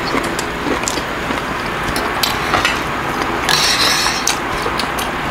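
Close-miked eating sounds: chewing a mouthful of kimbap with small wet mouth clicks, then metal utensils stirring and lifting ramyeon noodles out of a steel pot of broth, with a brief hissy scraping patch a little past halfway.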